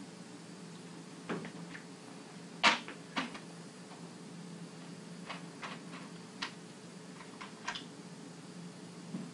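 Scattered light clicks and knocks of small objects being handled, the sharpest about two and a half seconds in, over a steady low hum.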